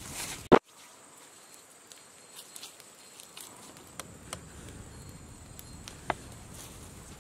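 A single loud crunch about half a second in, like a footstep on dry leaf litter, then faint outdoor ambience broken by a few sharp pops from a small wood fire crackling.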